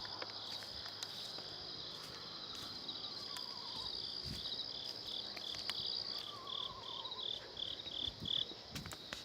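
Insects chirring steadily in a high, continuous chorus. A separate pulsed call of about three chirps a second runs through the middle, a lower warbling trill comes three times, and a few low thumps come near the end.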